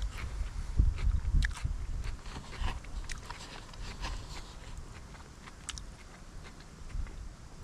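A man chewing mouthfuls of pan-cooked steak, with scattered short clicks and low rumbling thumps, heaviest in the first couple of seconds.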